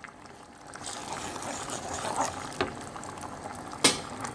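Cooking oil with ginger-garlic paste and ground spices bubbling gently in a frying pan. Two sharp knocks sound against the pan, about two and a half seconds in and again near the end.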